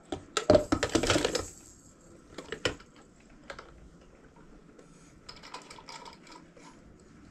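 Toy parts clicking and rattling as they are handled and fitted on: a dense run of sharp clicks in the first second and a half, a few single clicks after, and a lighter patch of clicking about five seconds in.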